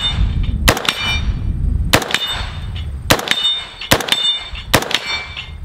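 Five rifle shots from an IWI Zion-15 5.56 AR-15, about a second apart, the last two quicker. Each is followed by the brief ring of a steel target plate being hit.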